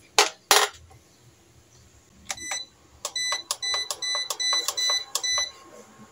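A square frying pan is set down on the glass top of a portable induction cooktop with two sharp knocks. A few seconds in, the cooktop's touch buttons are pressed, giving a quick run of about ten short electronic beeps as it is switched on and set.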